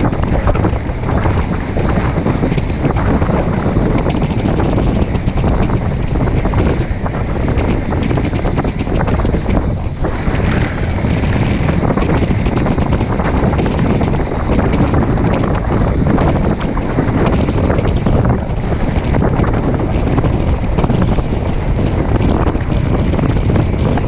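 Heavy wind noise buffeting the microphone of a camera on a mountain bike, over the rumble of knobby tyres rolling on a dirt road. Frequent small knocks and rattles come from the bike jolting over the bumps.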